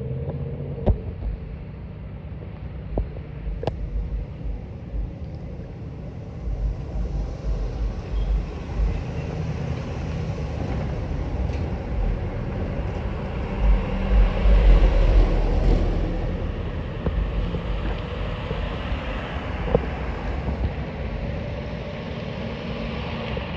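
Steady rumble of a vehicle on the move, with uneven low thumps and a louder stretch about two thirds of the way through.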